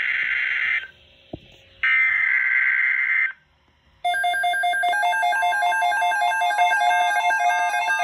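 NOAA Weather Radio broadcasting the SAME digital header of a tornado watch alert: two raspy bursts of data tones, each about a second and a half long, with a short gap between. About four seconds in, the weather alert radios' alarms go off together in a jumble of electronic beeping tones.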